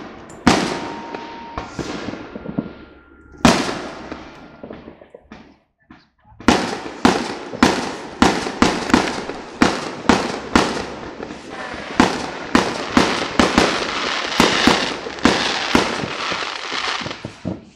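Aerial fireworks exploding: two single loud bangs in the first few seconds, then after a brief lull a rapid string of many cracks and booms, several a second, that keeps going almost to the end.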